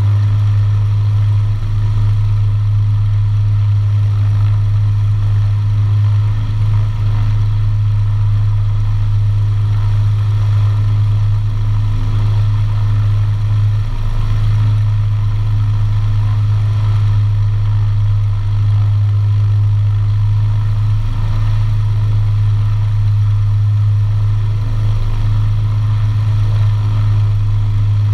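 Beriev Be-103's twin piston engines idling steadily, a loud even drone with a strong low hum.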